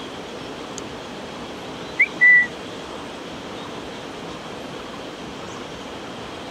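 A short whistle about two seconds in: a quick upward note, then a brief level note, over a steady hiss.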